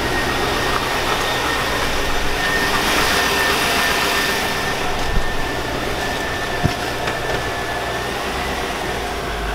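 Chevrolet 5.3L Vortec V8 in a high-mileage 2002 Avalanche idling steadily, with a steady high whine running through it. The owner takes the engine's noise for piston slap, or possibly a rod knock.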